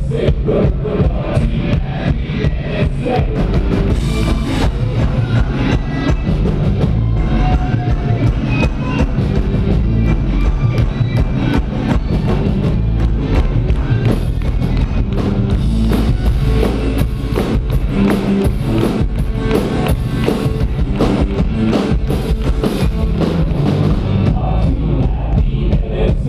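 Live band playing loudly, with a driving drum-kit beat carried by the bass drum and snare over electric guitar, bass guitar and keyboards.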